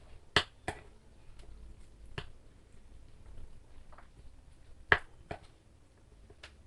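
Close-up eating sounds: a handful of sharp clicks and snaps at irregular intervals, the loudest about half a second in and again about five seconds in.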